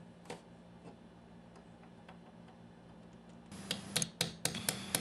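Claw hammer tapping a nail punch to countersink finishing nails in a crown molding corner block. A couple of faint taps come in the first second, then a quick run of sharper taps, about four a second, in the last second and a half.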